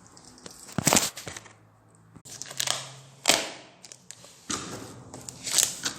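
Three short bursts of rattling knocks from driving screws to fasten a window trim strip.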